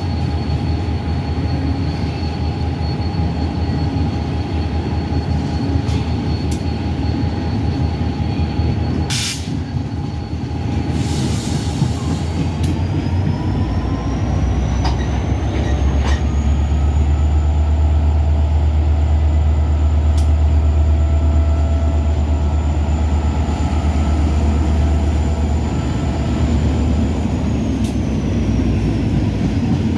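Freight train rolling by: a steady low rumble with occasional sharp clacks, and thin high squealing tones. The tones slide up about twelve seconds in, hold, and slide back down near the end. The rumble grows louder in the second half.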